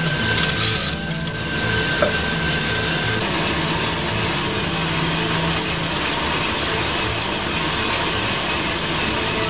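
Homemade coffee roaster running: a steady rush of air from its exhaust blower, with a rhythmic scraping from the machine underneath.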